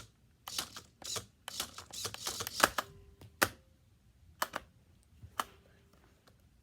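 Plastic clicking and rattling from a Fantastic Gymnastics toy as its red button is worked and the gymnast figure swings, then three separate sharp clicks about a second apart.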